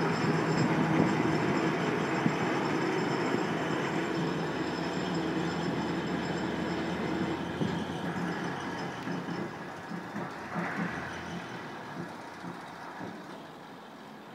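Coles rail crane's diesel engine running as the crane travels along the track, with its wheels knocking over the rails. The sound fades steadily as the crane moves away.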